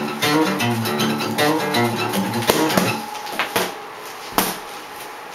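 Acoustic guitar played, a quick run of single picked notes that stops about three seconds in. After that, a few sharp knocks.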